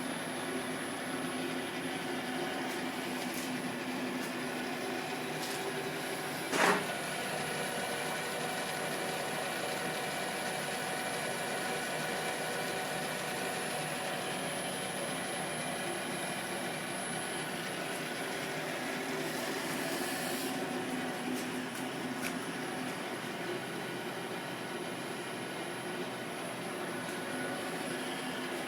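South Bend 9A metal lathe running steadily, its motor and gear train giving an even hum of several steady tones with a thin high whine above it. A single sharp knock sounds about six and a half seconds in.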